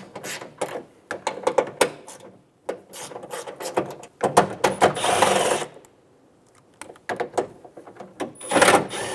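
Socket ratchet clicking in quick runs as the 10mm bolts holding a trunk latch are loosened and backed out, with two longer, harsher stretches, one about halfway through and one near the end.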